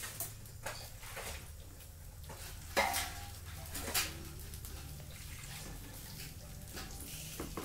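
Steel kitchen utensils clinking and knocking as they are handled, with one loud ringing clang about three seconds in and another knock about a second later, over a steady low hum.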